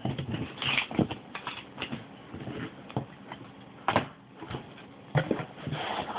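Cardboard shipping box being handled and opened by hand: irregular knocks, scrapes and rustles of the cardboard and its flaps, with the sharpest knock about four seconds in.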